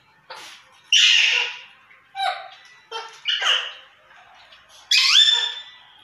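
Green parakeets squawking: about five harsh, loud calls, the loudest about a second in, and near the end a shriller call that rises in pitch and then holds it.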